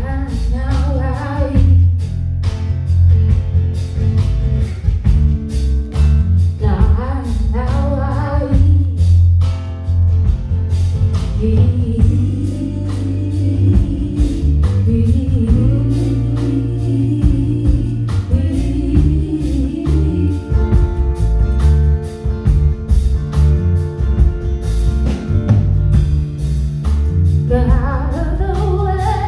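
Live folk-soul song: a woman's voice singing over strummed acoustic guitar, with a band's heavy bass underneath.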